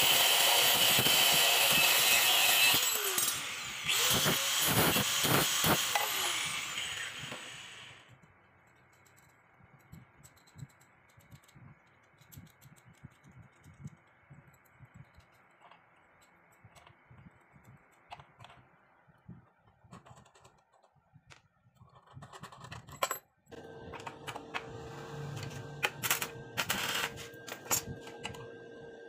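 Angle grinder cutting a threaded steel rod clamped in a vise, in two runs over the first eight seconds, each spinning up and then winding down. Then small metallic clicks of nuts and bolts being handled, and in the last few seconds a steady hum with sharp clinks of metal parts being set in the vise.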